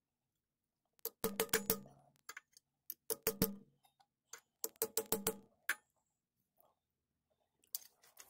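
A hammer tapping a metal seal-driver tube over the crankshaft stub, driving a new crankshaft seal into a Polaris 488 two-stroke engine case. The taps come in three quick bursts of several sharp, ringing knocks each, with a few single taps between them and one more near the end.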